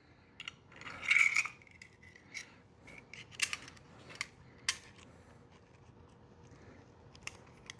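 Small clicks and scrapes of a hex key working the set screw out of a Glock magazine extension's base plate, with a brief scrape about a second in and scattered light taps as the parts are handled.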